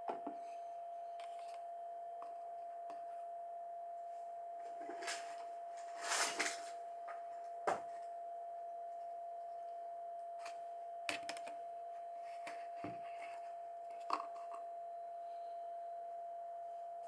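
Scattered clicks and knocks of objects being handled and set down on a desk, with a short rustle about six seconds in, over a constant steady whine.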